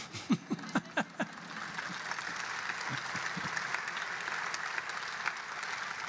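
Audience laughing in a few short bursts, then breaking into steady applause.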